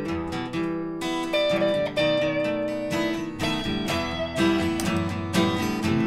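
Acoustic guitar and electric guitar playing an instrumental duet, with many short plucked notes over sustained chords.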